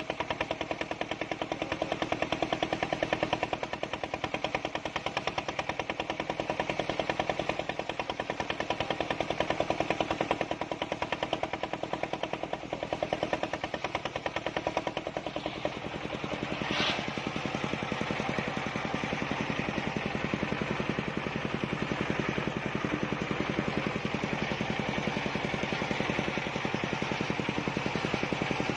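Homemade table circular saw rig running under power with a rapid, even pulsing, as it works through a large log. A single sharp crack sounds about 17 seconds in.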